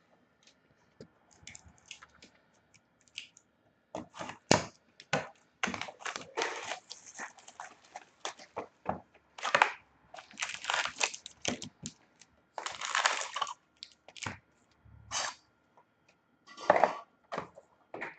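Plastic wrapping of a box of trading cards being torn and crinkled, in irregular bursts of crackling and tearing with sharp clicks and handling knocks between them.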